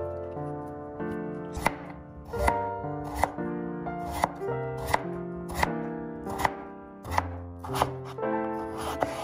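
Chef's knife slicing through peeled raw potatoes, each cut ending in a sharp tap on a wooden cutting board, about one cut a second. Background music of held notes runs underneath.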